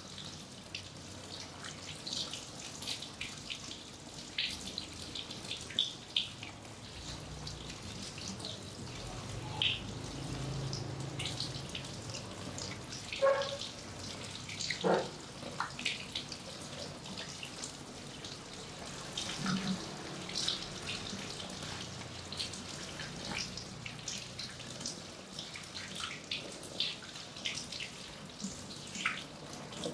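Water spraying from a handheld shower head onto hair and running into a shampoo basin, with irregular small splashes and drips.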